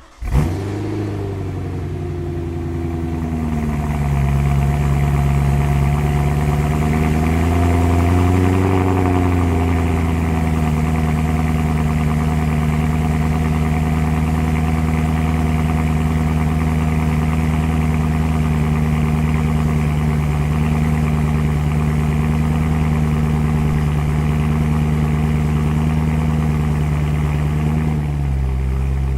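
BMW E92 M3's 4.0-litre V8 cold-starting through a Borla ATAK cat-back exhaust without venturis: it fires just after the start, flares and settles over the first few seconds, swells briefly about eight seconds in, then holds a steady fast cold idle that drops a little near the end.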